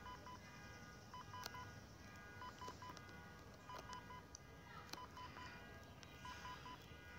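Faint electronic alarm beeping in quick sets of three short, high beeps, one set a little more than once a second.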